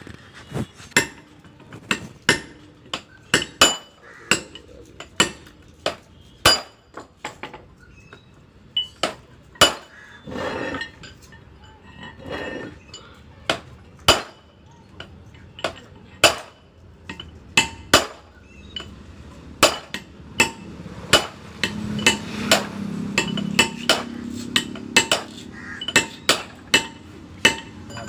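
Hammer blows on metal, sharp ringing strikes coming unevenly about one or two a second, with a low hum under them about two-thirds of the way through.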